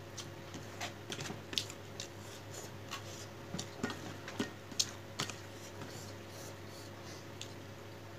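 Close-up eating sounds: irregular wet clicks and smacks of chewing, busiest in the first five seconds and thinning out after, over a low steady hum.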